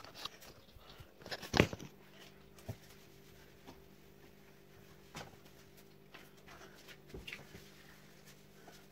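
A sharp knock about a second and a half in as the phone is set down, then a faint steady low hum with scattered small clicks and knocks.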